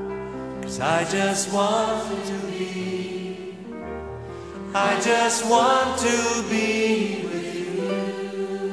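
Christian worship song: a group of voices sings two phrases, starting about one second and five seconds in, over held keyboard chords.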